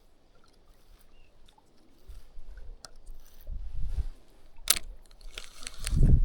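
Wind buffeting the microphone in gusts, the strongest near the end, with a few sharp clicks and knocks of handling noise in between.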